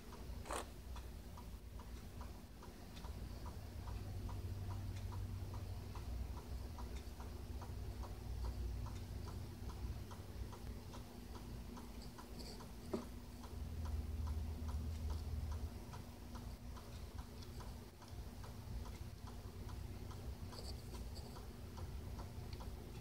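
Desert hairy scorpion digging in the substrate, heard through the enclosure's floor as a steady run of faint ticks and scrapes, about three a second, with a couple of louder clicks, over a low hum.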